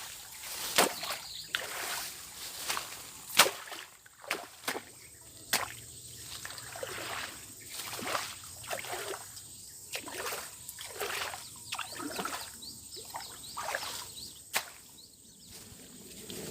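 Swamp water sloshing and splashing, with many sharp clicks and snaps and short gliding, chirp-like sounds throughout.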